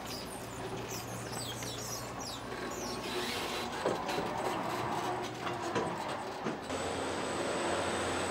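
Truck-factory floor ambience: a steady machinery hum with irregular short high chirps and squeaks and a few clicks. About two-thirds of the way through it changes abruptly to a steadier hum with a thin high whine.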